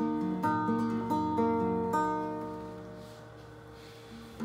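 Nylon-string classical guitar played fingerstyle: a quick run of plucked notes over the first two seconds, left ringing and fading, then a new chord struck near the end.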